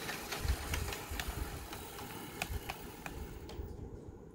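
HO-scale Athearn Ready-To-Roll P42 model locomotive running on track under its newly installed DCC decoder: a light motor-and-gear whir, a bit noisy, with scattered clicks from the wheels on the rails. The higher part of the whir drops away about three and a half seconds in.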